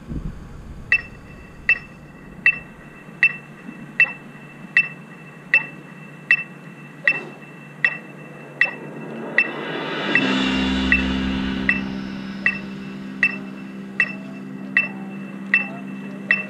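Electronic metronome beeping steadily at about 78 beats a minute. About ten seconds in, a held low chord comes in under the beeps.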